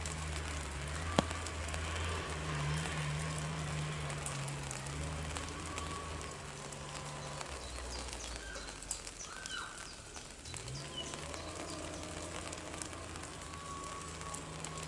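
Low, steady engine or machinery hum that fades for a couple of seconds past the middle, then rises back in pitch and returns, over raindrops tapping on an umbrella and a few bird chirps.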